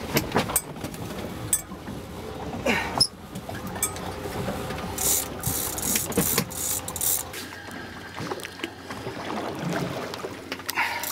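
A heavy conventional fishing reel and rod being worked as an angler fights a big fish: scattered clicks and knocks of the reel, with a few short bursts of hiss around the middle, over a steady low hum that falls away about two thirds of the way through.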